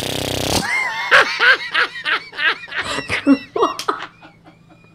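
A blown raspberry, a buzzing lip trill into the microphone that stops about half a second in, followed by bursts of laughter from two people that die away near the end.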